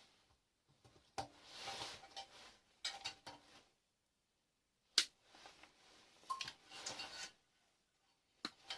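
Scattered clicks and rattles of hand tools and small parts while an alarm control panel's circuit board is being taken apart for scrap, with one sharp click about five seconds in.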